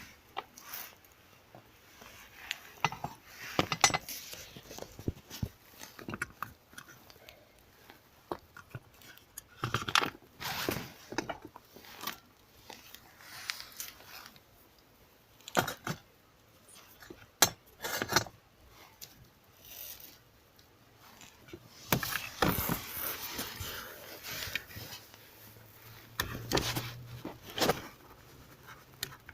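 Irregular clicks, knocks and short scrapes of hard parts being handled, with no steady rhythm. This fits hands-on work on a cabin blower fan.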